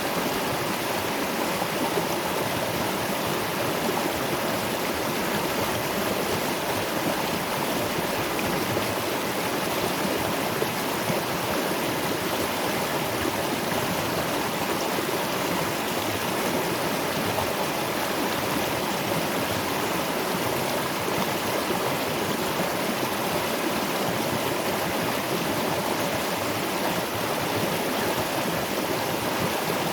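Waterfall and river water rushing steadily, an even, unbroken splashing hiss.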